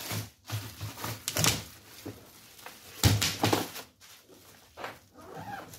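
Clear plastic sheeting rustling and crinkling as it is pulled and smoothed over a hard-shell ABS suitcase, in irregular bouts, with knocks from the case being handled; the loudest bout comes about three seconds in.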